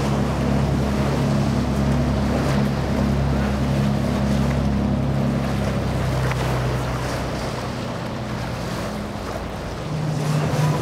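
Large sportfishing boat's inboard engines droning low and steady under the rush of water along the hull and wind on the microphone. The engine note fades a little past the middle, and near the end a different engine note comes in.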